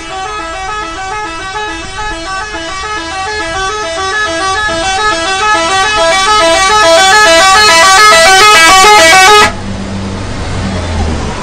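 Indonesian 'telolet' bus horn: a multi-tone musical horn playing a fast, repeating melody of several alternating notes, growing steadily louder, then cutting off suddenly about nine and a half seconds in. A low vehicle rumble follows.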